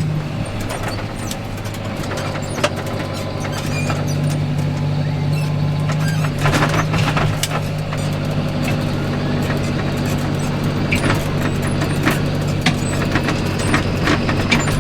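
Tractor engine running steadily under load while hauling a bucket of snow, growing a little louder about four seconds in, with scattered clanks and knocks.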